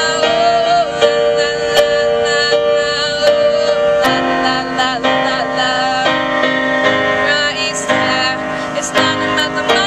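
Yamaha digital piano played live: sustained chords struck in a steady rhythm, a new chord roughly every second.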